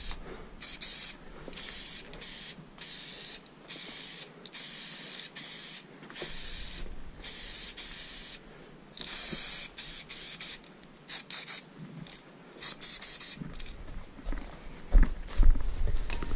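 Aerosol spray paint cans spraying a graffiti fill in repeated bursts, the hiss starting and stopping every second or so. A few low knocks come near the end.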